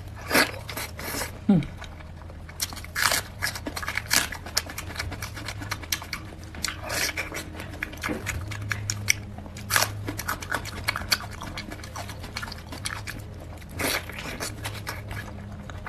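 Close-miked mouth sounds of biting and chewing braised pork with its skin and fat: irregular wet smacks and clicks, over a low steady hum.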